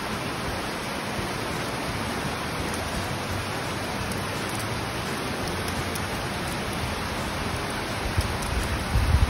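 Steady, even rushing noise with no distinct events. Low, uneven rumbling bumps come in near the end.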